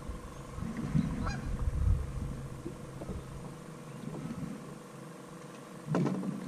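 A goose honking: a short call about a second in and another near the end, over low knocks and handling noise.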